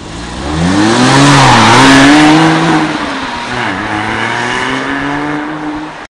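2007 Porsche sports car accelerating hard away, its engine note climbing in pitch and dropping back twice at gear changes. The sound cuts off suddenly near the end.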